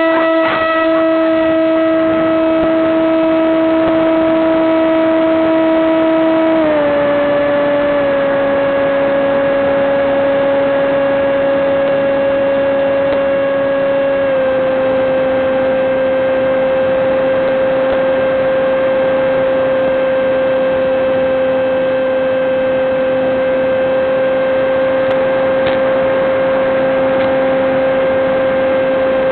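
Electric motor and propeller of an FPV model aircraft running at steady throttle, a loud, even buzzing tone. It steps down in pitch about a quarter of the way in and again about halfway through.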